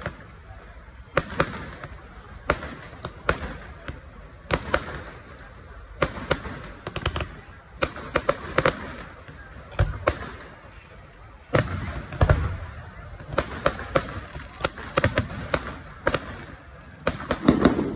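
Aerial firework shells bursting: a run of sharp bangs at irregular intervals, coming thick and fast near the end.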